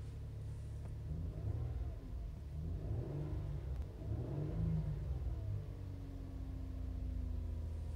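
2017 Kia Sorento engine running just after a hard start that took about twenty tries. It is revved up and down three times, about a second in, then settles back to a steady idle.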